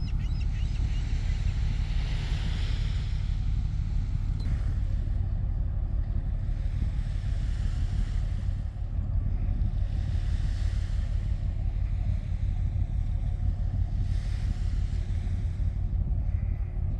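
Steady low rumble of a large cargo ship passing close by, with the wash of its breaking bow wave swelling and fading on top.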